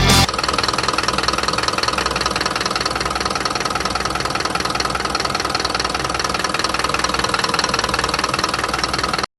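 Toyota Coaster's 4.0-litre diesel engine idling steadily with a fast, even pulse. It cuts off abruptly near the end.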